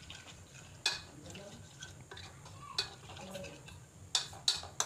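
Metal spoon stirring a thick spice paste in a ceramic plate, scraping softly and clinking against the plate: once about a second in, again near three seconds, then a quick run of clinks near the end.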